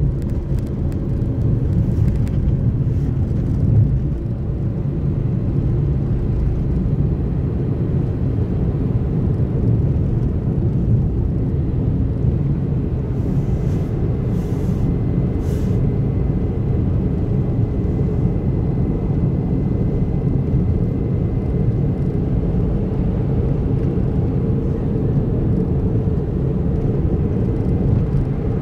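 A car driving at a steady speed on a highway: continuous low road and engine rumble with no change in pace.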